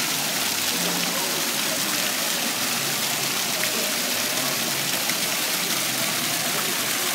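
Fountain water pouring and splashing steadily into its basin, with thin jets falling onto the pool's surface.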